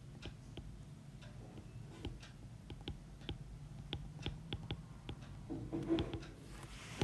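Irregular light clicks and taps of a pen writing on a surface, a few a second, over a steady low hum. A brief faint vocal sound comes near the end.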